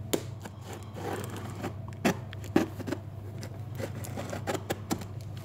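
Knife blade cutting the brown packing tape along the edge of a cardboard box: an irregular run of short scratches and clicks, with the tape crackling and the cardboard scraping, a couple of sharper clicks about two seconds in.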